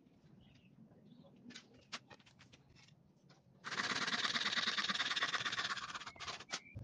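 A handsaw cutting through a wooden batten with quick back-and-forth strokes. It starts about three and a half seconds in and stops abruptly just before the end, after a few light knocks of wood in the quieter part before it.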